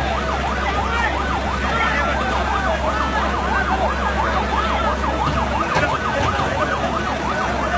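Emergency vehicle siren on a fast yelp, its pitch sweeping up and down about three times a second without a break, over the noise of a large crowd.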